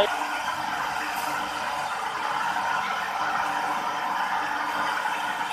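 Tyre retreading machinery running with a steady electric hum and whir, even and unchanging throughout.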